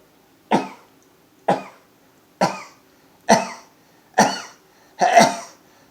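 A man sneezing in a rapid run of six short sneezes about a second apart, part of a sneezing fit of multiples. Each sneeze is sharp and quickly cut off, and they grow louder toward the end.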